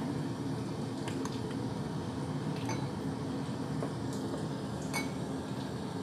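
Steady low rushing of a lit gas hob burner heating an empty wok, with a few faint light clinks of kitchenware.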